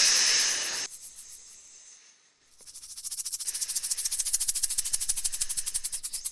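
A short breathy snake hiss over a rattlesnake's rattle, fading almost to nothing. About two and a half seconds in, the rattlesnake's rattle starts up again as a fast, even buzz.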